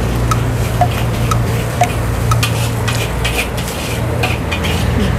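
Metal utensils clinking and scraping against cookware and plates, in sharp clicks that bunch up in the second half, over a steady low hum.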